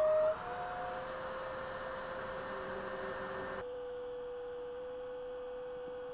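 Electric air pump inflating an air tent: a steady motor hum that dips slightly in pitch about three and a half seconds in.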